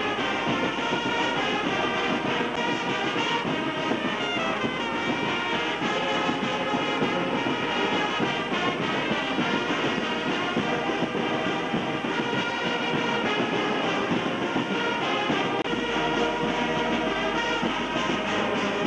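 Continuous music with many held notes sounding together at a steady level.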